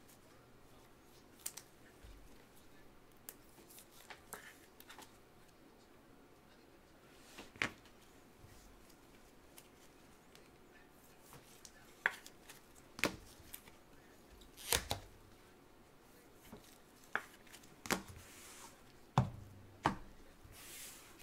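Scattered light clicks and taps of football trading cards and clear plastic card sleeves being handled and set down by gloved hands, more frequent in the second half, with a soft brushing rustle near the end.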